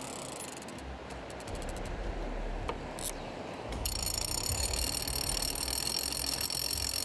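Big-game fishing reel ratcheting as a shark runs with the bait and pulls line off the reel. It clicks at first, and from about four seconds in it becomes a steady high whine as line pays out faster. Low wind or surf noise lies under it.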